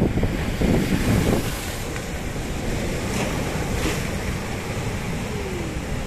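Sea surf breaking on a flat rock shelf: a wave surges in over the first second or so, then foam hisses steadily as it washes across the rock.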